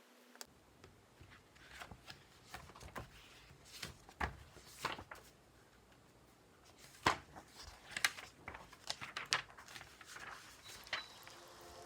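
Irregular small taps, clicks and short rustles of objects and paper being handled on a desk, with the sharpest taps about seven and eight seconds in.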